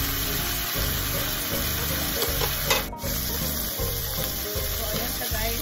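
Chicken pieces sizzling as they brown in oil in a nonstick frying pan, stirred with a wooden spatula, over background music with a steady beat. One sharp click about three seconds in.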